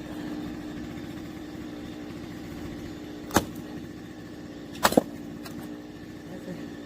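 An engine running steadily at an even pitch, with a sharp crack about three seconds in and a quick double crack about five seconds in.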